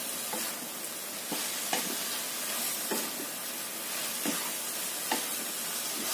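Chopped green chillies and fried chicken pieces sizzling steadily in oil in a nonstick wok. A wooden spatula stirring them scrapes and knocks against the pan every second or so.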